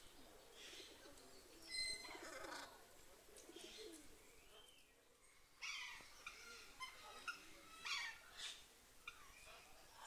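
Parrots calling faintly: scattered short squawks and chirps, loudest about two seconds in and again around six and eight seconds in.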